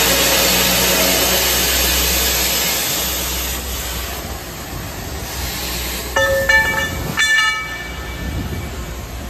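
Behringer HCS 160 CNC high-speed circular saw machine running, a loud steady hiss over a low hum that fades down after about three and a half seconds. About six and seven seconds in, two sharp metal clangs that ring briefly, the loudest sounds here.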